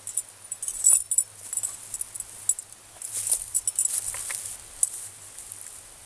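Dry pine needles and leaf litter crackling and rustling in irregular clusters of sharp little crunches.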